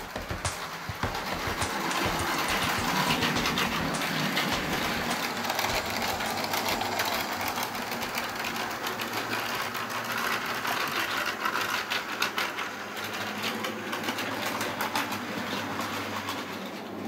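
Model train running on the layout's track: a steady small electric-motor whir with a low hum and fast irregular clicking of wheels over rail joints, growing louder over the first two seconds.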